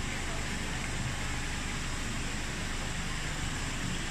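Steady, even rushing hiss with a low rumble underneath, unbroken throughout.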